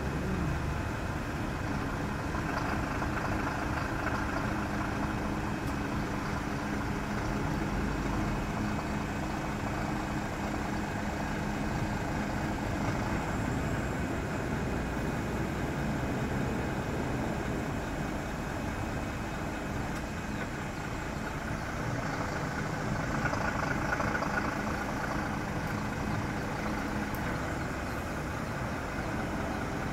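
Engine of a truck-mounted Unic crane running steadily while it holds a suspended shipping container. A steady droning tone sits over the engine for roughly the first two-thirds, then drops away.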